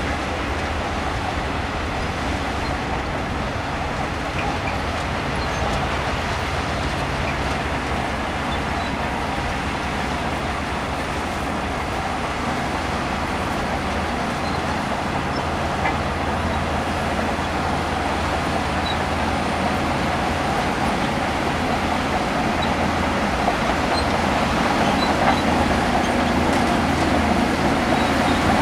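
Shantui DH17C2 crawler bulldozer's diesel engine running steadily under load, with the rumble and clatter of its tracks, growing a little louder near the end.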